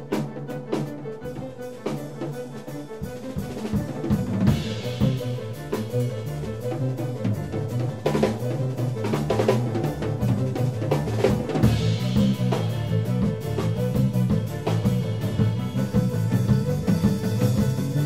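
Live performance by a mixed ensemble of bowed strings, electric bass guitar and drum kit: busy drumming over a moving bass line, the band filling out and growing louder about three seconds in.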